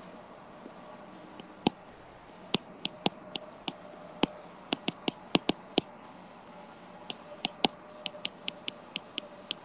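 Irregular sharp clicks of a stylus tip tapping a tablet's glass screen during handwriting, coming in clusters of several a second with a short pause in the middle, over a faint steady hum.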